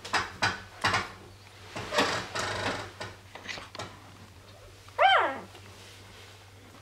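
Newborn Doberman puppy giving one short squeal about five seconds in, rising briefly and then dropping in pitch. Before it come a few short, noisy bursts of scuffling against the blanket, over a steady low electrical hum.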